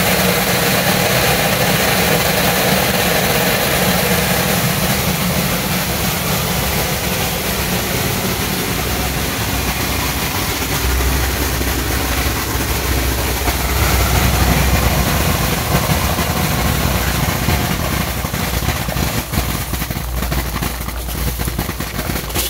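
ANYSORT VM optical colour sorter running while sorting mung beans: a loud, steady machine noise over a low hum. The hum grows stronger about halfway through.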